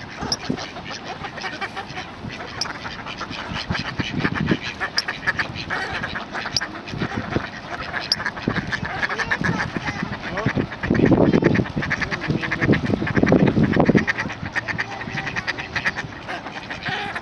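Ducks quacking, many calls overlapping in quick pulsing series, with a louder stretch of calling between about 11 and 14 seconds in.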